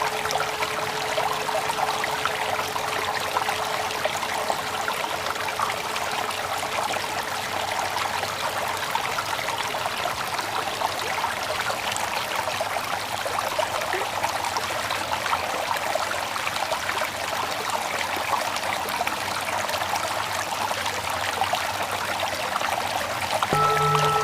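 Steady flowing water like a stream, with the last of a mindfulness bell's ring dying away in the first few seconds. Near the end the bell is struck again and rings on with several steady tones and a slow pulsing hum.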